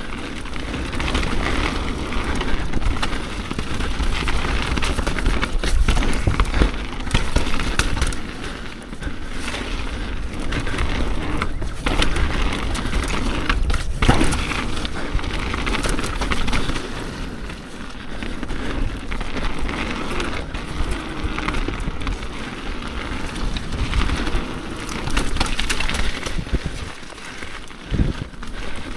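Mountain bike riding down a wet dirt trail, picked up by an action camera on the bike or rider: tyres rolling and sliding over wet dirt and roots, with the chain and frame rattling and frequent sharp knocks from bumps and impacts.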